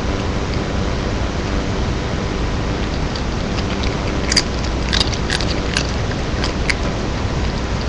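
Siamese cat biting and crunching Doritos tortilla chips: a run of sharp, crisp crunches from about halfway through, over a steady hiss.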